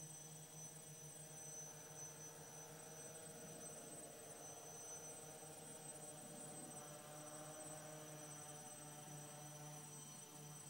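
Faint, steady electric buzz and hum whose pitch wavers slightly: the brushless motors of a DJI F450 quadcopter in flight, heard from a distance.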